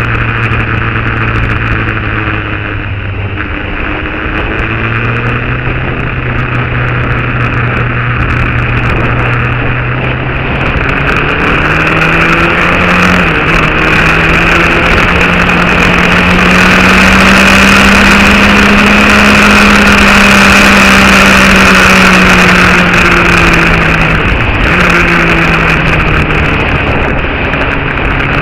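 An engine running steadily under a constant hiss. Its pitch dips briefly, then, about halfway through, climbs slowly, holds for several seconds and falls back, as the engine speeds up and eases off.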